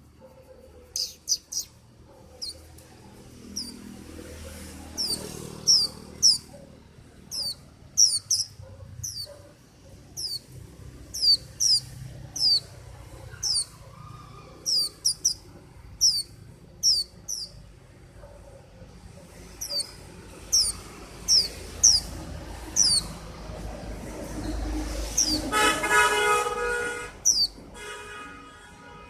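A white-eye (vành khuyên) calling in repeated bursts of short, high, down-slurred chirps, often two or three in quick succession. Near the end a vehicle horn sounds for about a second and a half over a low traffic rumble.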